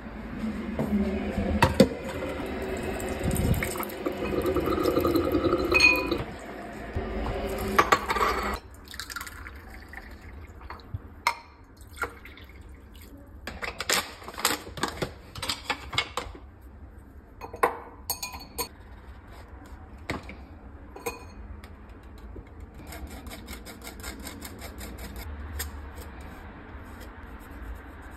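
Water running into a glass vessel for about eight seconds, its pitch rising as it fills and stopping suddenly. After that come scattered clinks and light taps of glassware and utensils on a countertop.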